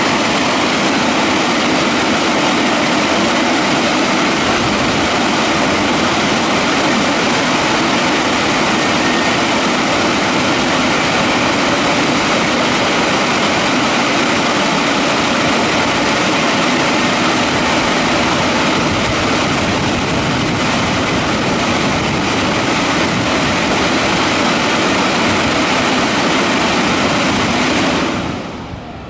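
WashTec EasyWash gantry car wash running its drying stage: the dryer blowers give a loud, steady rush of air with a faint whine, then shut off about a second before the end.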